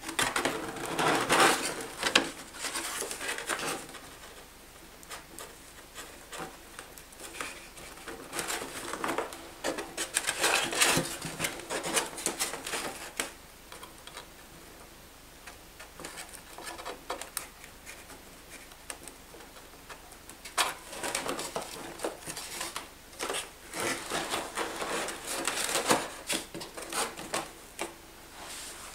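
Hands handling a Depron foam model aircraft: scattered rubbing, scraping and light knocking of foam parts and servo leads as the wing is fitted onto the fuselage, coming and going with quieter stretches between.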